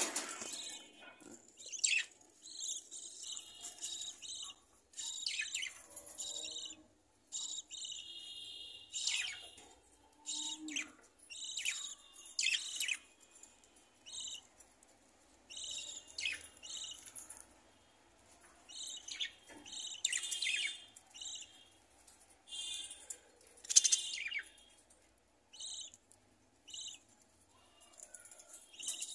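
Budgerigars chirping and chattering in short bursts of high calls, with brief pauses between them.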